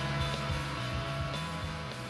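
Rock music with guitar, slowly growing quieter.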